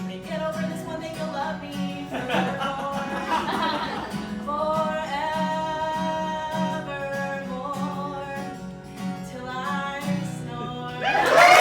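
A woman singing with strummed acoustic guitar, ending on long held notes. Audience applause breaks out suddenly near the end.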